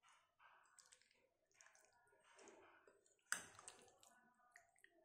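Faint, brief wet squelches of chicken pieces in a thick egg-and-flour marinade being stirred with a metal spoon in a bowl, with one sharper click a little over three seconds in.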